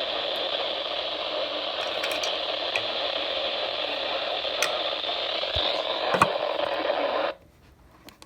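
Steady radio static hiss from a radio receiver tuned to an emergency alert broadcast, with a few faint clicks; the hiss cuts off suddenly about seven seconds in, leaving near silence.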